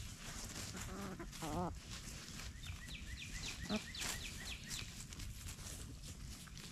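Chickens foraging in dry leaves and compost: a hen's short wavering call about a second in, over scattered scratching and rustling in the leaf litter. A quick run of about nine short, high, falling bird chirps comes in the middle.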